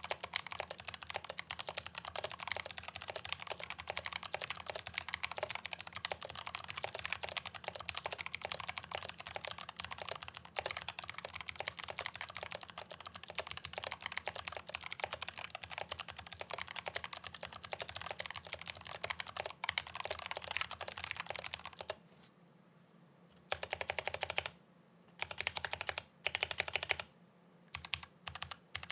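Fast typing on a mechanical keyboard with Kailh Box Pale Blue clicky switches in a walnut wood case, a dense stream of sharp key clicks. About two-thirds of the way through it breaks into short bursts of typing with brief pauses between them.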